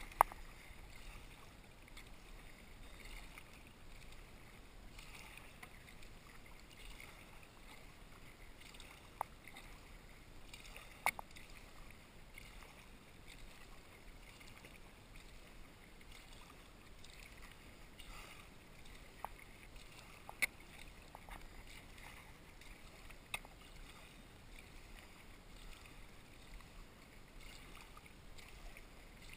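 Sea kayak paddling: faint, repeated swishes of the paddle blades entering and leaving the water, with a handful of sharp clicks scattered through.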